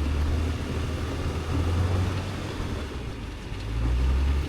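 Tank 500 SUV's engine running low under a bogged-down vehicle, swelling twice as throttle is given, about a second and a half in and again near the end.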